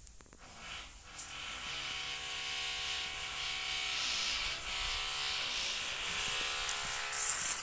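A motor's steady hum that starts about a second and a half in, sags briefly in pitch midway, then picks up again and fades near the end.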